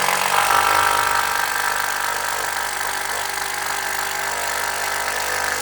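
Power drill driving a long 4 7/8-inch screw into a wooden roof beam, its motor running steadily under load at an even pitch, a little quieter after the first two seconds.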